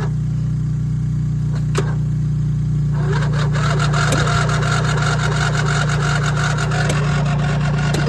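Cold 21-horsepower Craftsman riding mower engine being cranked and struggling to start, over a steady low hum. About three seconds in, the sound turns denser and rougher, with a rapid regular ticking.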